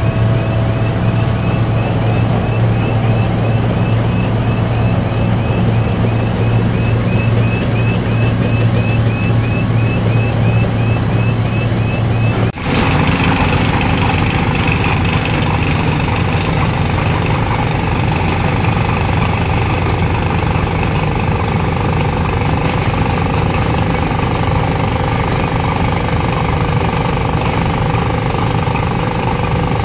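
Heavy diesel machinery running steadily. About twelve seconds in, the sound breaks off suddenly and changes to a rougher, noisier machine sound with a fast rattle.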